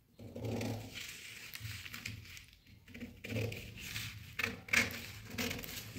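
Tailoring scissors cutting through double-folded pattern paper along a marked sleeve outline: a series of uneven snips with the paper rustling between them.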